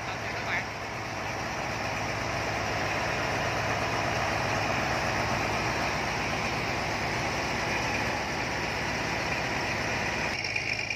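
Large diesel engine on a sand-pumping barge running steadily, driving the sand pump through its gearbox and shaft coupling. Its sound changes abruptly near the end.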